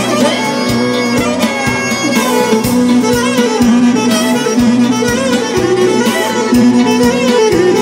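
Albanian folk dance music played live: a clarinet carries an ornamented, bending melody over a steady dance beat from the band.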